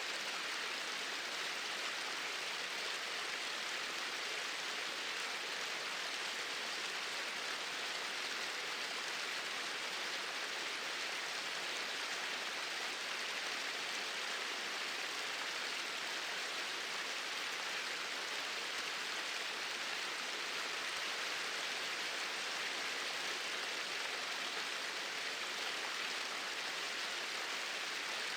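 Small waterfall splashing and rushing in a steady, even hiss, with no changes.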